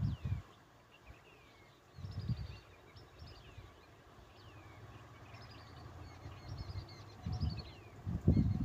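Small birds calling throughout: repeated short, downward-sweeping chirps and quick trills. Several loud low rumbling bursts break in at the start, about two seconds in, and most strongly near the end.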